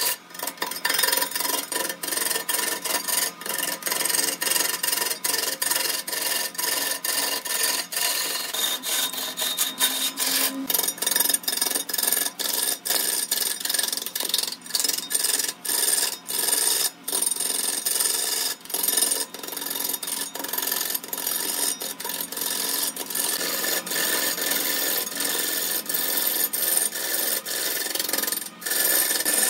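A hand-held turning tool cutting into a large log spinning on a wood lathe: a continuous rough scraping of wood being turned, broken by a few brief gaps.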